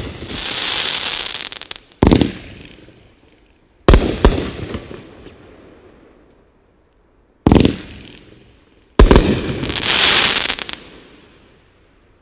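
Cat Memes 500-gram firework cake firing its last shots: five sharp bangs a second or two apart, two of them followed by about a second and a half of dense crackling. The sound dies away near the end as the cake finishes.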